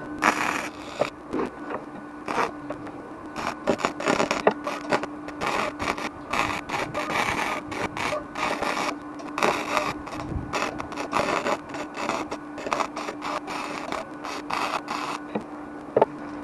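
Metalworking on the van's rusted steel bumper support: irregular scraping and crackling bursts over a steady low hum, typical of cutting, grinding or welding in a rust repair.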